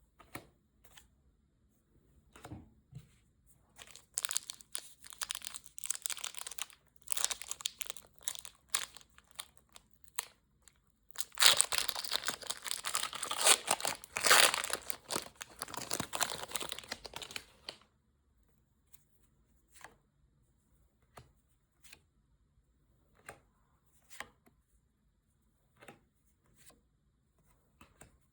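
Packaging of a Pokémon card set being torn open and crinkled, in bursts that grow loudest and densest for several seconds midway, then give way to a few light handling clicks.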